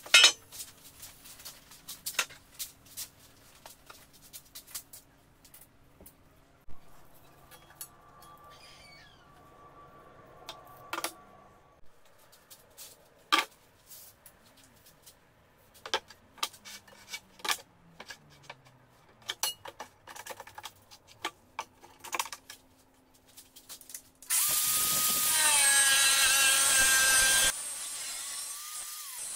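Scattered knocks and clatters of a steel pipe and tools being handled on a workbench, then about 24 seconds in an angle grinder's cutting disc runs loud and cuts through the steel pipe for about three seconds, its pitch sagging under the load, before it drops away and winds down.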